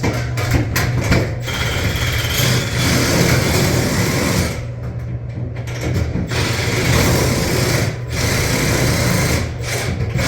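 Power driver running in bursts with brief stops, backing bolts out of an evaporator coil's mounting. A steady low hum runs underneath.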